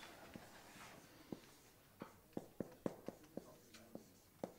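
Marker pen writing on a whiteboard: a run of faint short squeaks and taps as the letters are drawn, most of them in the second half.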